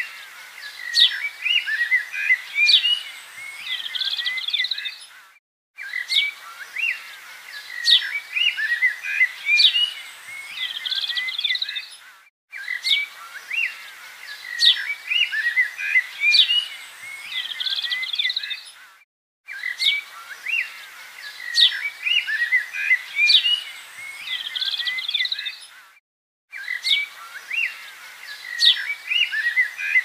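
Many small birds chirping, a busy mix of short high calls and whistles. The same stretch of recording repeats about every seven seconds, with a brief silent break before each repeat.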